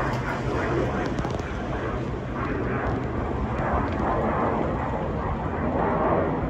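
Business jet passing overhead: the steady noise of its jet engines.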